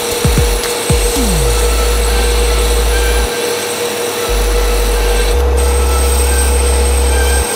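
Belt grinder running with a steady whine while a steel sword blade is pressed against its narrow half-inch contact wheel, a constant rasping hiss of the belt cutting steel as notches are ground into the blade's spine.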